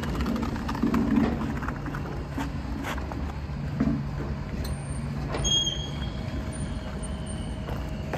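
Steady low outdoor rumble with a few faint knocks, and a short high-pitched chirp a little past five seconds in.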